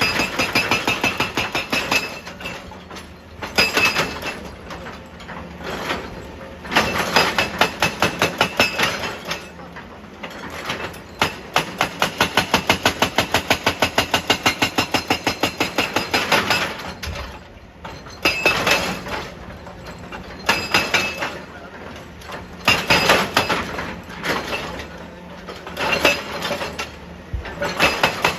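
Excavator-mounted hydraulic breaker hammering rock in repeated bursts of a second to several seconds, rapid metallic blows about seven or eight a second with a ringing clink.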